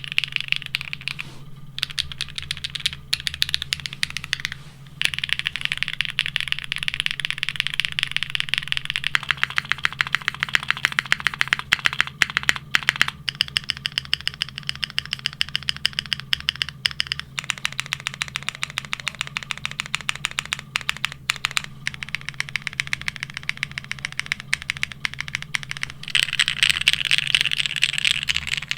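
Fast continuous typing on a Neo65 mechanical keyboard with ABS keycaps: GMK keycaps at first, then DCS keycaps from about eight seconds in, with a few short pauses between bursts.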